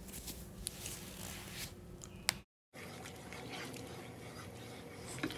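A spoon stirring salt into a pot of boiling water: the faint steady bubbling of the boil, with a few light clicks and scrapes of the spoon against the pot.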